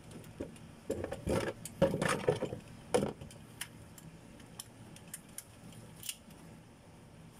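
Metal clinks and rattles of a 3/8-inch ratchet and socket on a car's transmission drain plug: a cluster of clicks and knocks in the first few seconds, then a few scattered single clicks.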